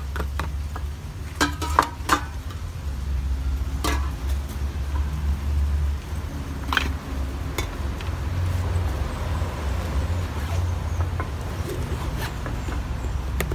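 Tins and plastic containers knocking and clinking as they are packed into a padded soft cooler bag, with a few sharp knocks in the first four seconds, over a steady low rumble. Near the end the bag's zipper starts to be pulled closed.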